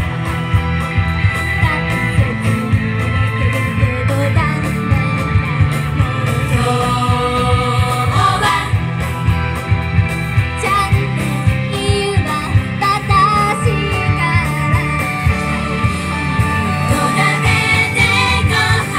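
Upbeat pop song played over a PA system, with a group of women singing into microphones over a steady beat.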